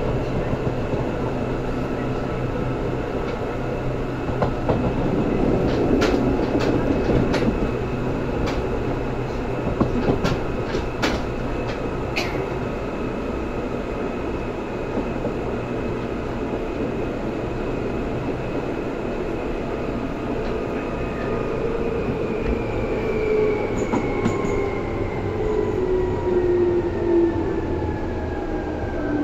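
Seibu 2000 series electric train running, heard from inside the car: a steady motor and gear whine over the running noise, with a run of sharp clicks from the wheels and rails. About two-thirds of the way through, the whine starts falling steadily in pitch as the train slows.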